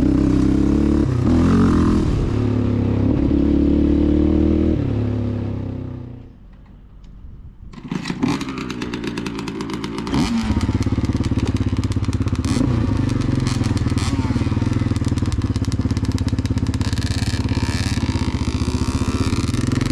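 Yamaha Raptor 700R ATV's single-cylinder four-stroke engine running under throttle, its pitch rising and falling, then dying away about six seconds in. After a short lull it idles steadily, with dirt bike engines revving nearby.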